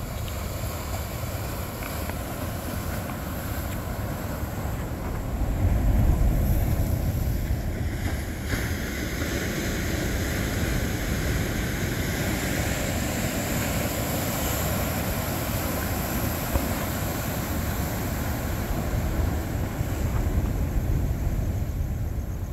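Wind buffeting the microphone over a steady wash of ocean surf, with a stronger gust about six seconds in.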